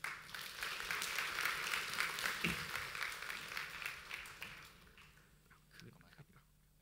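Audience applauding at the end of a talk. The clapping starts sharply, is strongest over the first couple of seconds, then thins and fades out after about five seconds.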